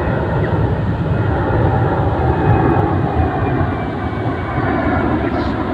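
Jet roar from a C-17 Globemaster III's four turbofan engines, loud and steady as the transport flies a low approach, with a faint falling whine partway through.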